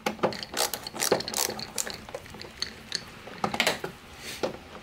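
Screwdriver with a T20 Torx bit backing out a screw from a plastic air-intake snorkel: irregular clicking in short clusters as the handle is turned back and forth.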